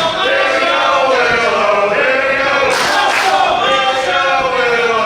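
Wrestling crowd chanting in unison, the same sung phrase repeating every couple of seconds.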